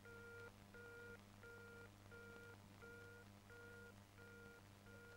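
Faint telephone busy signal (short beeps) from the handset earpiece, about one and a half even beeps a second, eight in all: the other party has hung up and the line is dead.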